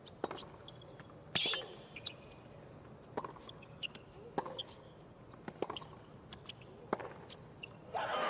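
Tennis ball being struck back and forth in a baseline rally on a hard court: sharp racket hits about every second and a bit, with fainter ball bounces between. Near the end the crowd breaks into applause as the point finishes.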